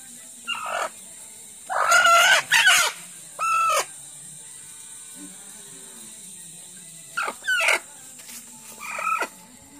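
Desi hen squawking loudly as it is held, in a run of short calls: a cluster in the first four seconds, a gap, then more calls near the end.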